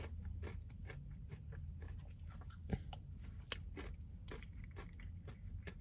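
A person chewing a crunchy mouthful of frozen custard with Heath toffee and chocolate pieces, many small crackly crunches, close to the microphone over a low steady hum.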